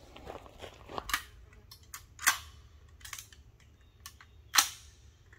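Rifle shots: a string of sharp cracks at uneven intervals, with fainter cracks between them. The loudest comes about four and a half seconds in.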